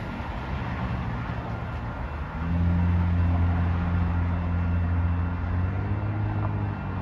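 Steady low diesel-engine drone from the approaching track-maintenance train, setting in about two and a half seconds in and holding even.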